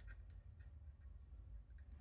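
Near silence: a low steady rumble of room tone with a faint click about a quarter second in and a few fainter ticks near the end.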